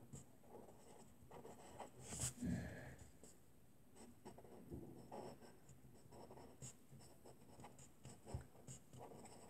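Faint scratching of a pen on paper as someone writes, in short scattered strokes.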